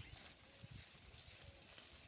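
Faint sound of cattle feeding on dry corn straw: low thuds and light crackling as they chew and move the stalks.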